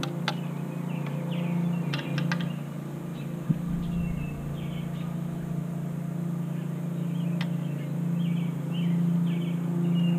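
Birds chirping over a steady low hum, with a few sharp clicks as the curved LED light bar and its metal roof brackets are handled.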